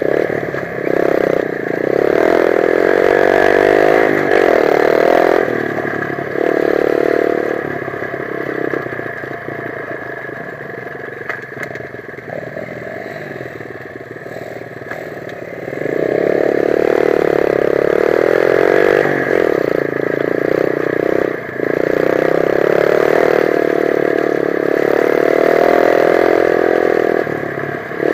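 125 cc dirt bike engine running hard under throttle in long pulls, falling back to lower revs for several seconds in the middle before pulling hard again.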